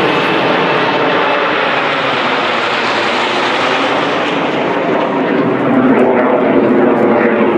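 Formation of jet aircraft flying overhead, a steady engine roar that swells louder near the end.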